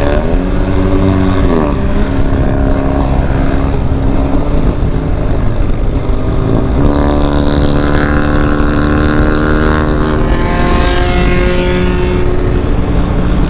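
Vehicle engine running at road speed under a steady rumble, its pitch rising about a second and a half in, stepping higher around seven seconds in and falling back a few seconds later as the throttle opens and closes.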